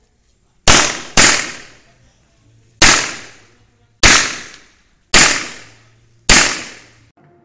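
Six handgun shots: two in quick succession about half a second apart, then four more at intervals of about a second, each a sharp crack with a short decaying tail.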